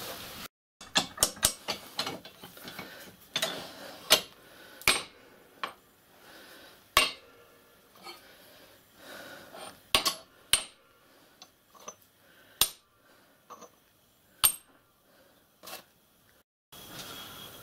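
Sawn pieces of a cast iron block and a hacksaw being handled on a bench vice and workbench: an irregular series of sharp metal knocks and clinks, each dying away quickly.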